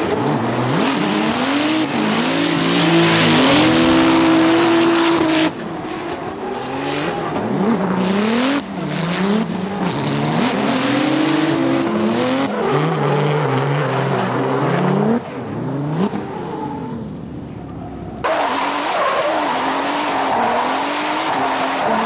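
Hyundai Genesis Coupe's twin-turbocharged 3.8-litre V6 drift car revving up and down hard while drifting, over the hiss and squeal of the rear tyres sliding and spinning. The sound jumps abruptly several times between shots.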